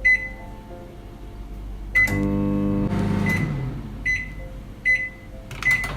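Microwave oven beeping, with a short low hum of the oven running at about two seconds. The hum cuts off and is followed by a series of evenly spaced beeps, a little under a second apart.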